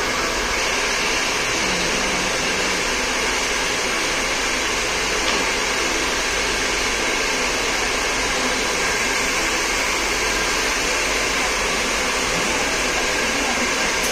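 Salon hair dryer blowing steadily, an even whoosh that doesn't change.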